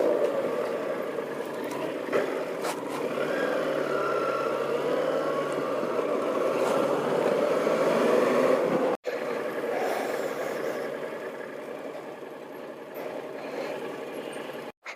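Yamaha TDM 850 motorcycle under way: its 849 cc parallel-twin engine running with a steady rush of riding noise. The sound cuts out briefly twice, about nine seconds in and near the end.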